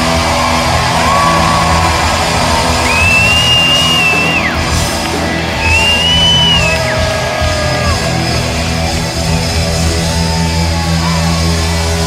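Live rock band playing loudly with electric guitars and drums, heard from the audience in a large hall. Two long high held notes that bend come in about three seconds and six seconds in.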